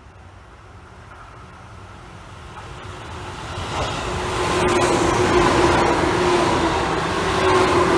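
A Tobu 9000 series electric train approaching, getting steadily louder over the first five seconds and then running loud. From about four seconds in, a steady whine of two pitches sits over the rumble of the wheels.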